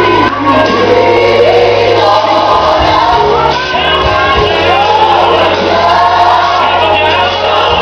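Gospel song with a choir singing over a steady bass line, played loudly.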